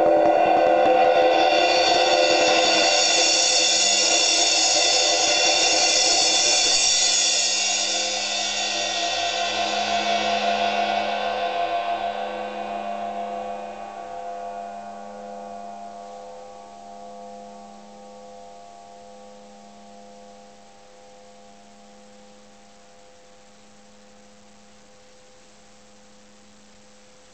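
Vintage 1960s Zyn 2 Star crash cymbal rolled with soft felt mallets, building a dense shimmering wash. The roll stops about seven seconds in and the cymbal rings on, fading slowly over some twenty seconds to a faint low hum.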